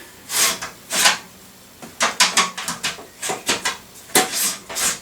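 Hard drives and their mounting hardware being handled in a PC case's drive cage: two scrapes in the first second, then a quick run of small clicks and rubs about two seconds in, then longer scrapes near the end.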